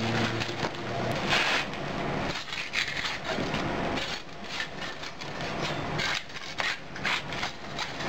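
Hardened sand-and-cement casting mould being broken apart and pulled off a freshly cast tractor seat: a run of scraping, crumbling and cracking noises with a few knocks.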